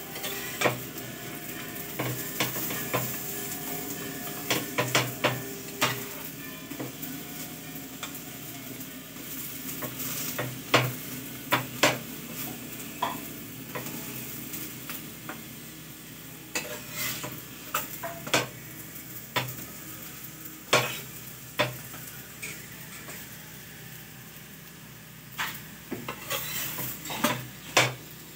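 Onion paratha sizzling in oil on a flat griddle, with a spatula scraping and clicking against the pan again and again as the flatbread is pressed and moved.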